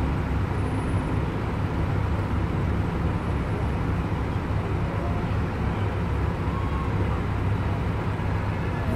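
Steady low rumble of cars idling in stopped traffic, with no single event standing out.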